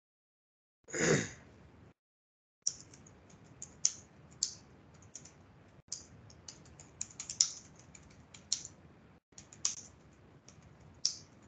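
Typing on a laptop keyboard: irregular key clicks, some louder than others, from about three seconds in. About a second in there is a single brief, louder noise.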